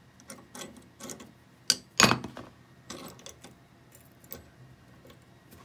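Light metal clinks and taps from a steel transmission line and the pieces of a bubble-flaring tool being handled at a vise, with one sharper knock about two seconds in.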